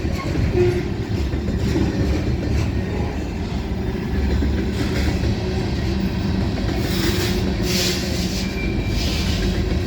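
Freight train cars rolling past close by: a steady rumble of wheels on rail with clatter, and a short spell of sharper, higher-pitched wheel noise about seven seconds in.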